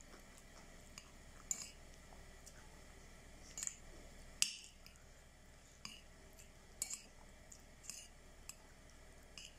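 Metal spoon clinking and scraping against a ceramic plate while stirring fried rice: faint, irregular light clicks, with one sharper clink about four and a half seconds in.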